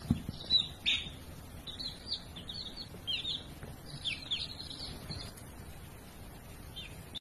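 Baby chicks peeping: many quick, high, falling cheeps in a row, thinning out near the end.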